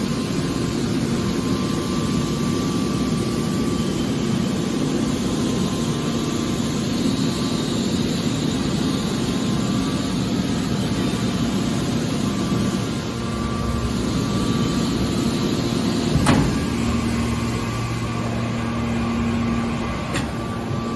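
Hydraulic scrap metal baler shear running, with a steady machine drone and pump hum. A single sharp clank comes about 16 seconds in, and a smaller click near the end.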